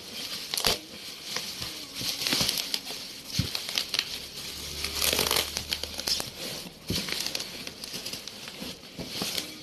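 Packaging being crinkled and rustled as it is handled, with many small clicks and crackles.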